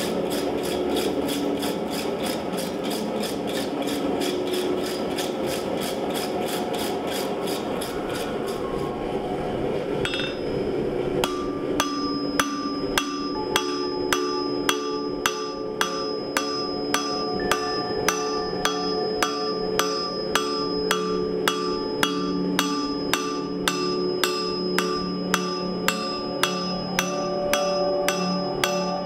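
Blacksmith's hand hammer striking red-hot steel on an anvil, flattening a bar into a spatula blade. A quick run of blows, about four a second, gives way about ten seconds in to steady strikes about two a second, with the anvil ringing after each.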